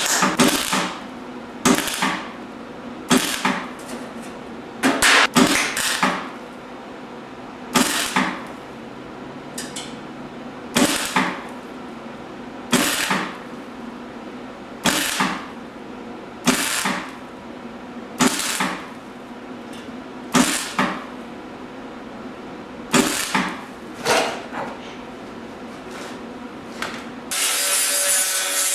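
A Clarke 125EN MIG welder laying a series of tack welds on a steel patch panel, each a short crackling burst of about half a second, one to two seconds apart, over a steady hum. Near the end a continuous noise takes over.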